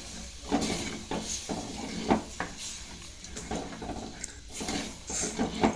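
Wooden spoon stirring a thick prawn curry in a clay pot, knocking and scraping against the pot several times.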